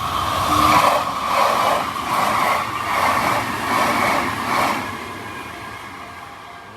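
Train chugging sound with rhythmic puffs about twice a second, fading away over the last couple of seconds.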